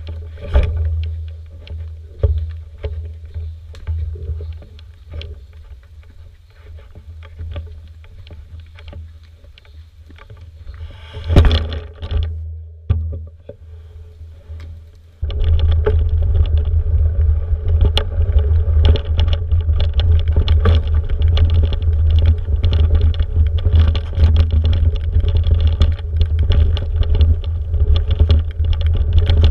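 Mountain bike on a dirt trail heard from a camera mounted on the bike: knocks and rattles of the bike and a low rumble of wind on the microphone, with a loud clunk about a third of the way in. About halfway through it turns abruptly into a steady, loud rumble and rattle of tyres on dirt and wind as the bike gets moving.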